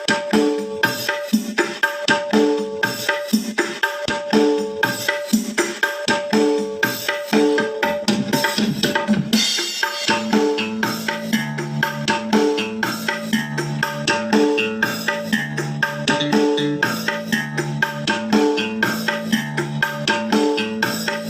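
Percussion-led music played back through a Zetapro 12-inch line array speaker, with a fast, even drum rhythm; a bass line comes in about ten seconds in.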